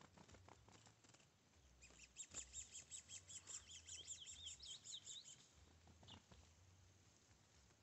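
Curió (chestnut-bellied seed finch) singing a fast run of high, warbling notes for about three and a half seconds, starting about two seconds in.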